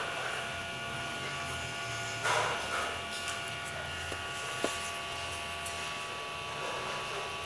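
Steady electrical buzz with a thin whine, with a soft rustle about two seconds in and a single faint click about four and a half seconds in.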